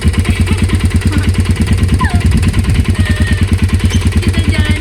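ATV engine idling just after starting, a steady, rapidly pulsing run.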